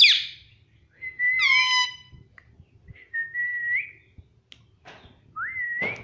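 Indian ringneck parakeet giving a short sharp call, then a series of whistled notes. One long whistle has a falling slide, one level whistle rises at its end, and a rising whistle comes near the end.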